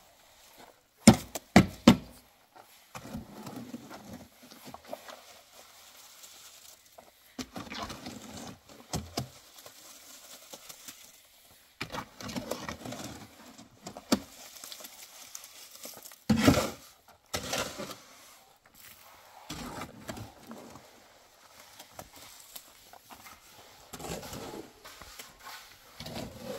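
Shovel scooping wet cement mix out of a metal wheelbarrow: repeated scraping strokes against the barrow's pan, with sharp knocks about a second in and again, loudest, about sixteen seconds in.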